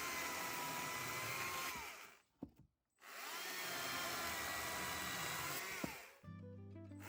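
STIHL MSA 140 C battery chainsaw's electric motor whining at full speed and winding down, twice, with a short click and a brief silence between the two runs.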